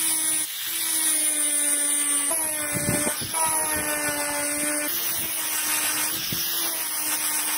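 Angle grinder with a felt buffing wheel running steadily against a steel sword blade, polishing it to a mirror finish: a steady motor whine over a hiss from the wheel on the steel.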